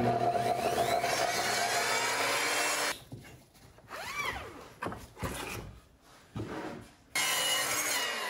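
Evolution sliding compound miter saw running and cutting through a 2x4. It stops about three seconds in, leaving a few seconds of quieter knocks and handling, then starts again and cuts a second time about a second before the end.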